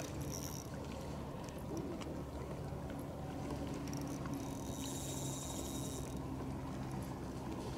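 Steady low outdoor background noise on open water with a faint constant hum, and a high chirping trill lasting about a second and a half, starting near the middle.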